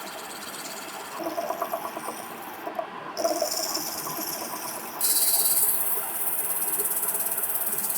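A steady high hiss that steps up abruptly in loudness about three seconds in and again about five seconds in, with some light clattering in the first few seconds.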